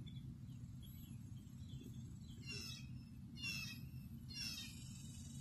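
A bird gives three short, harsh calls about a second apart over a steady low rumble.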